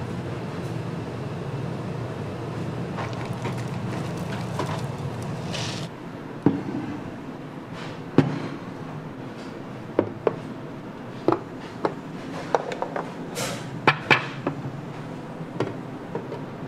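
A steady low hum for about the first six seconds, which then drops away; a dozen or so sharp clicks and knocks follow, scattered through the rest.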